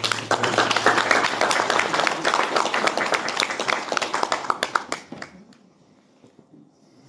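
Audience applause, starting abruptly and dying away after about five seconds.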